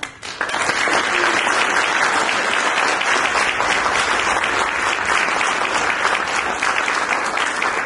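Audience applauding: many hands clapping at once, starting about half a second in and holding steady.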